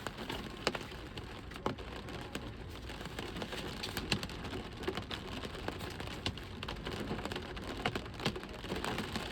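Rain falling steadily, with irregular drops ticking sharply against a hard surface.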